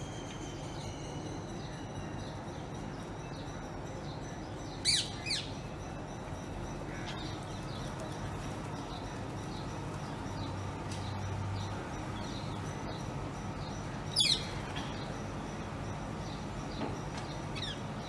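Rose-ringed parakeets giving short, shrill, falling screeches: two close together about five seconds in and another about fourteen seconds in. Fainter short chirps repeat in between over a low steady hum.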